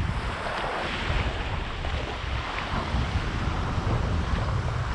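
Wind buffeting the microphone in gusts, over small waves lapping and washing onto a sandy shore.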